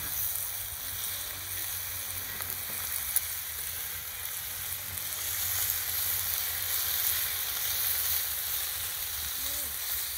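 Strips of meat sizzling on a flat stone slab heated over a wood fire: a steady frying hiss of fat and juices on the hot rock. One sharp click about three seconds in.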